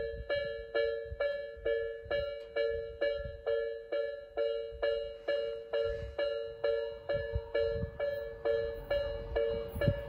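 Japanese railway level-crossing warning bell of the electronic Tobu Nikko type, ringing steadily at a little over two strokes a second. Each stroke is a two-tone ding that dies away quickly. The crossing is closed for an approaching train.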